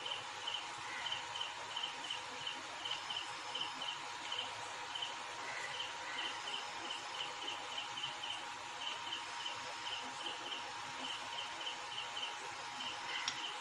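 Faint, repeated high chirping from a small animal, a few short chirps a second in uneven runs, over a steady hiss and a faint steady hum.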